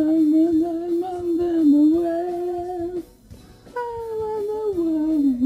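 A single voice singing a slow melody with long held, wavering notes. It breaks off about three seconds in and starts again a moment later.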